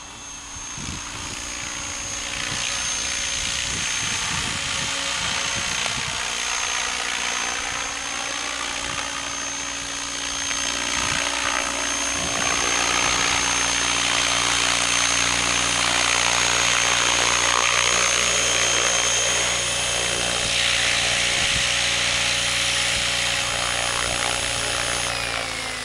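Radio-controlled model helicopter's motor and rotor running steadily, growing louder over the first few seconds as it comes closer. Near the end, after it is down on the grass, a high whine falls in pitch.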